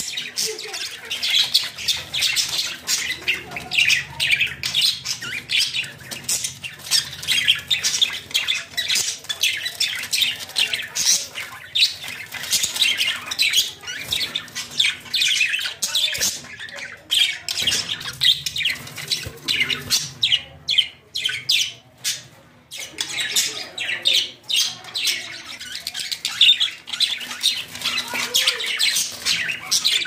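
Budgerigars chattering and squawking in a fast stream of short, high calls, easing off briefly about two-thirds of the way through.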